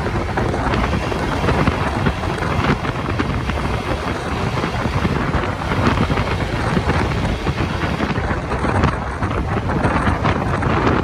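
Wind buffeting the microphone on a moving motorbike, a dense rumbling rush mixed with engine and street traffic noise.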